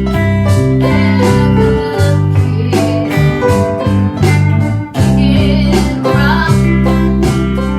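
Band music: guitar over bass and drums with a steady beat of about two hits a second, in a blues or country style.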